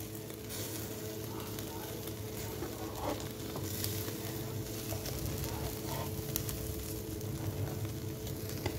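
Marinated beef skewers sizzling over hot charcoal on a barbecue grill, a steady hiss with scattered crackles and pops, over a faint steady hum.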